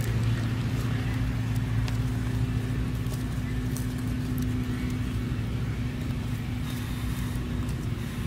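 A steady low engine-like hum runs throughout, with a few light clicks and snaps.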